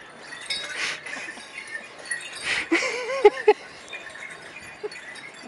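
Small bells jingling and clinking in an uneven rhythm with the sway of a bumpy elephant ride, with a short wavering vocal sound about three seconds in.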